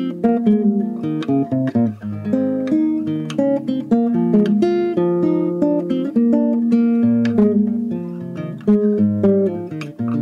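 Instrumental acoustic guitar music: a continuous run of plucked notes and chords.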